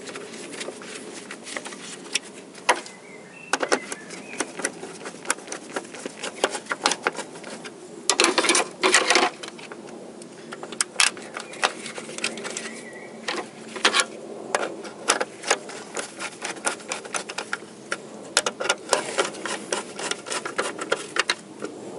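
Hand ratchet clicking as the wiper linkage's mounting bolts are run down and pre-tightened, in runs of sharp clicks with a dense burst of fast ratcheting a little after eight seconds in.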